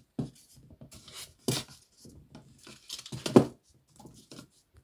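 Cardboard firework mine tubes being set down and shuffled into a row on a hard sill: a few dull knocks with scraping and rustling between, the loudest a little past three seconds in.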